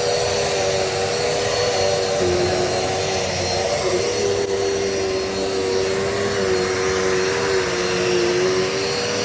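Dirt Devil Multi-Surface vacuum cleaner running steadily, its motor whine wavering slightly in pitch.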